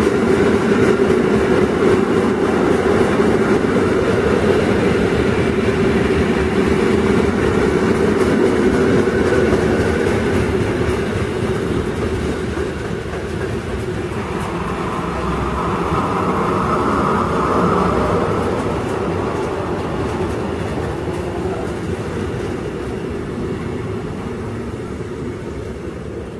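An intermodal freight train of wagons loaded with semi-trailers rolling past with steady wheel-on-rail noise. The noise swells once about two-thirds through, then fades as the last wagons go by near the end.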